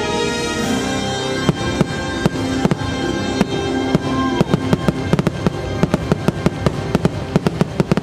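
Fireworks bursting over show music: the sharp bangs start about a second and a half in and come faster and thicker in the second half, while the music's held notes carry on underneath.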